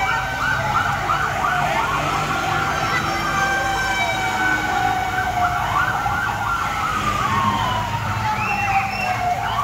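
Fire truck siren sounding a slow wail, its pitch rising and falling about twice.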